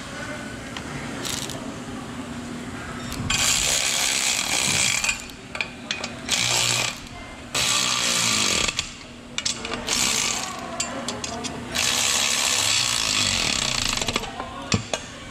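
Cordless ratchet running on the nuts of an exhaust flange joint, in repeated bursts of one to two seconds with short blips between.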